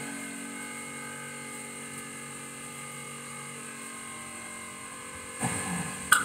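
Steady background machine hum made of several fixed tones, with a brief rustle near the end and a single sharp knock just before it ends.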